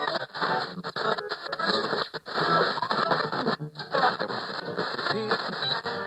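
Radio noise: static and hiss mixed with choppy snatches of music, cutting out briefly twice along the way, as when a receiver is tuned across stations.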